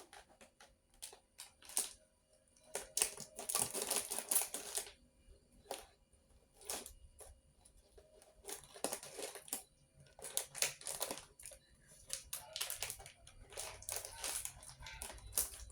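Plastic snack packets being handled and opened: bursts of crinkling and rustling with scattered sharp clicks.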